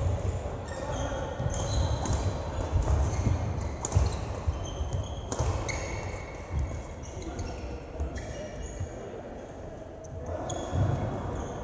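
Sports shoes squeaking on an indoor court floor during play, in many short high chirps, over a run of low thuds.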